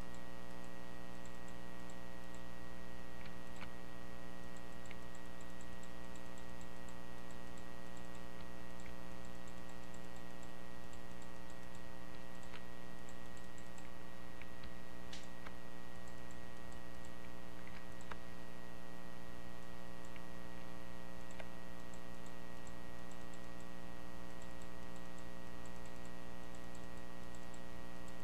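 Computer mouse clicking irregularly every second or two, the loudest click about halfway through, over a steady electrical hum.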